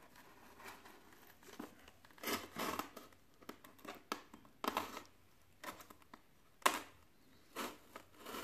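Hobby knife blade cutting along the seam of a styrofoam box, giving a few short scraping, crinkling strokes spread over several seconds with quiet between them.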